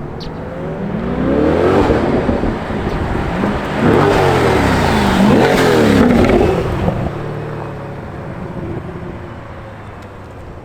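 A 2020 C8 Corvette's V8 is revved up and down several times, its pitch climbing and falling, then settles back to a steady idle about seven seconds in.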